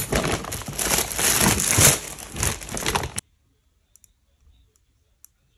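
Plastic shopping bag rustling and crinkling as groceries are taken out of it, cutting off abruptly a little after three seconds in. A few faint small clicks follow.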